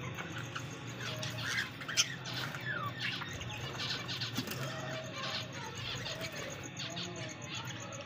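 An aviary flock of budgerigars and cockatiels chirping and chattering, many short overlapping calls and squawks, with one sharp click about two seconds in.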